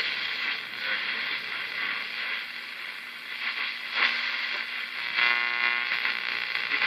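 Westinghouse Model 504 AA5 tube radio tuned between AM stations, giving a steady static hiss. There is a click about four seconds in, then a short buzzy tone lasting about a second as the dial passes a signal.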